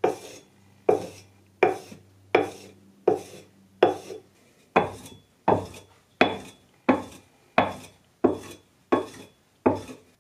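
A hand-held sharpening stone stroked repeatedly along the steel edge of an antique one-hand adze, honing the blade. There are about fourteen rasping strokes in an even rhythm, roughly one every 0.7 seconds, each starting sharply and fading.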